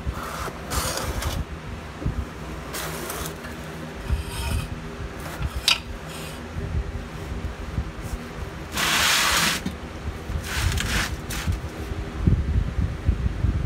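Scattered rustling and scraping from a person shifting around on a rolling mechanic's creeper, the loudest burst about nine seconds in. A steady low hum runs underneath.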